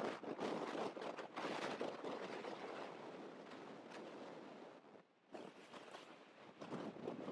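Wind buffeting the microphone in uneven gusts, dropping away briefly about five seconds in.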